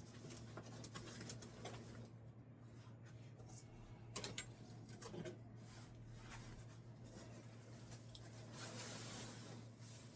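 Faint handling of a large cardboard box: scattered taps, scrapes and rustles of cardboard, with a sharper knock about four seconds in, over a steady low hum.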